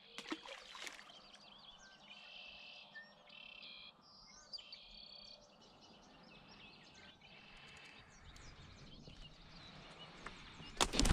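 Birds singing outdoors: a run of short, buzzy trilled phrases repeated every second or so, over faint background noise, with a loud knock or rustle near the end.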